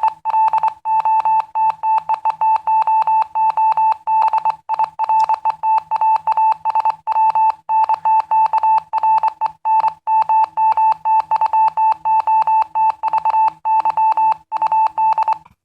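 Morse code beeps from a Morse code transmitter app: one steady-pitched tone keyed on and off in short and long pulses, spelling out "Hello, mother. How are you today?". It stops shortly before the end.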